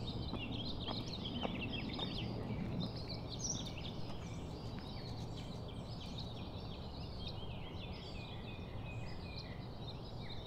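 Several birds chirping and trilling in many short, quick calls that overlap through the whole stretch, over a steady low hum.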